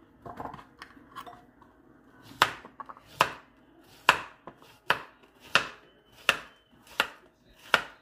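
Kitchen knife slicing a zucchini into rounds on a plastic cutting board: soft handling sounds at first, then from about two seconds in a sharp knock of the blade on the board roughly every three quarters of a second.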